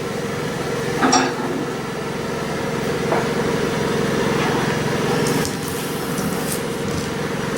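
A click about a second in, then the windscreen washer pumping fluid and the new wiper blades sweeping the windscreen, over the steady hum of the car's idling engine.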